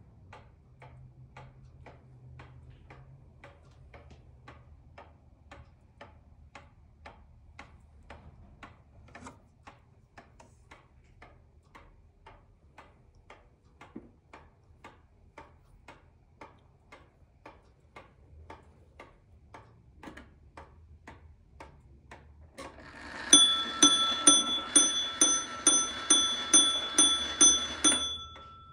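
Antique Seth Thomas pendulum wall clock ticking steadily, then, near the end, striking the hour in a quick run of about eleven ringing strokes on its gong.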